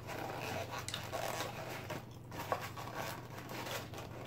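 Close-miked chewing of a beef hot dog, with small clicks and rustles from its paper wrapper being handled.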